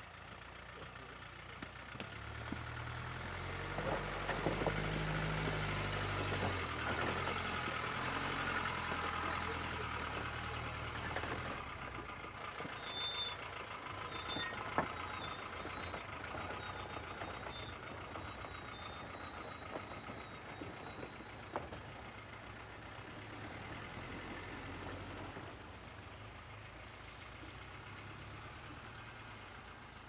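Military Mercedes-Benz G-Wagen utility vehicle driving slowly onto a floating pontoon bridge, its engine loudest a few seconds in and then running more quietly. A few sharp knocks sound along the way.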